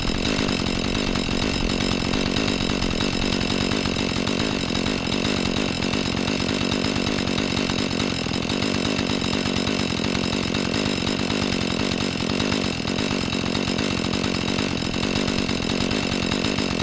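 Husqvarna 435 two-stroke chainsaw running steadily at constant revs, without letting up.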